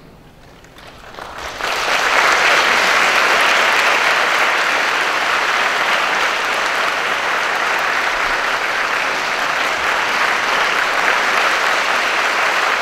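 Concert audience applauding. A short hush, then the clapping starts about a second in, swells quickly and holds steady and loud.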